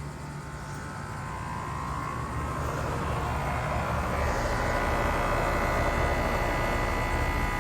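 2025 Carrier Comfort 15 two-ton heat pump outdoor unit starting up: compressor and fan coming up to speed, the running sound growing steadily louder over a low hum with a few steady higher tones.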